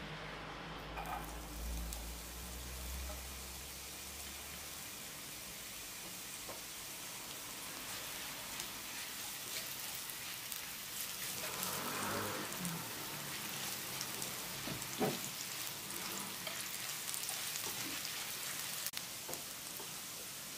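Chopped red onion sizzling in hot oil in a frying pan, starting about a second in as the onion goes in, with now and then the scrape and tap of a silicone spatula stirring it. The onion is at the start of being sautéed.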